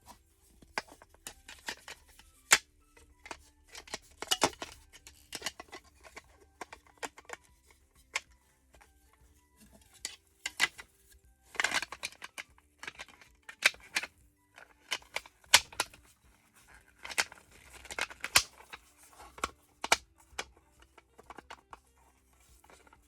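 Plastic toy packaging being handled and opened: irregular sharp clicks and short rustles, with soft background music underneath.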